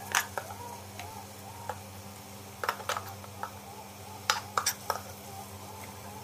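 A spoon clinking and tapping against the pan and bowl as ground mint–coriander paste is spooned into the frying peas, a string of light clicks in irregular clusters over a steady low hum.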